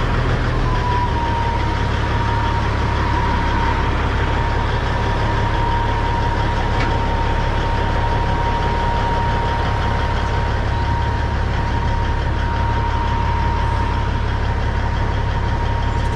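Peterbilt 379's diesel engine idling steadily, with a steady high-pitched whine running alongside it.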